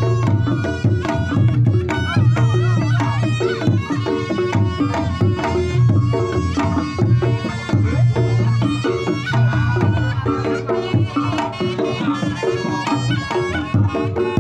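Reog Ponorogo ensemble playing traditional Javanese music: kendang drums keep up a busy pattern of strokes under a wavering slompret melody, over a low sustained gong hum that swells and fades.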